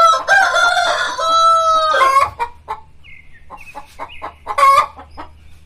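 A rooster crows once, a long held call of about two seconds at the start. It is followed by scattered short clucks from the chickens and one brief loud call near the end.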